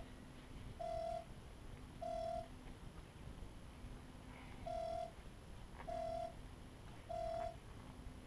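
Electronic beeping: a short, steady mid-pitched beep about once a second, in two runs of three with a pause between, and a fainter lower tone sounding in the gaps.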